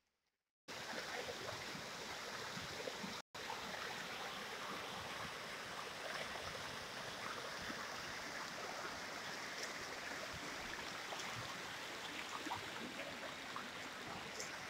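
River water rushing and splashing over rocks in shallow rapids, a steady noise that begins about a second in and cuts out for an instant about three seconds in.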